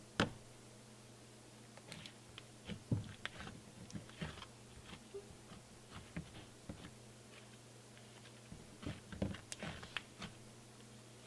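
Pink cloud-cream slime with beads mixed in, squished and pressed by fingers: faint, scattered wet clicks and small crackly snaps.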